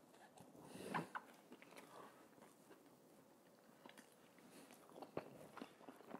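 Faint close-miked chewing of a mouthful of Italian sub: soft scattered mouth clicks, the loudest about a second in.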